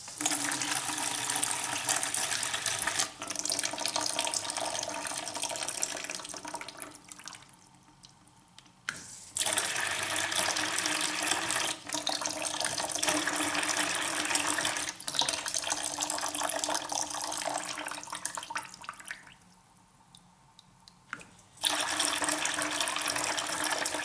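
Stream of water from a dishwasher aquastop valve's hose splashing into a plastic bucket, switched on and off three times. Each flow starts abruptly and tapers off as the valve closes and the hose drains, leaving short pauses about seven and twenty seconds in.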